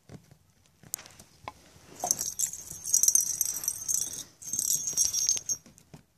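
Small bell jingling in quick rattling shakes: a burst of about two seconds, a short break, then another of about a second. A few light knocks come before it.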